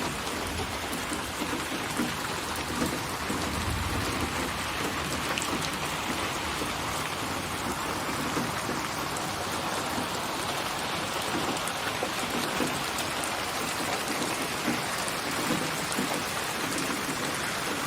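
Steady rain falling, with scattered sharper drop hits and a brief low rumble about four seconds in.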